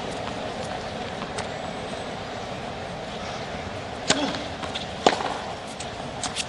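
Tennis ball struck with rackets during a rally: two sharp hits about four and five seconds in, then a few lighter ticks near the end, over the steady hush of a large stadium crowd.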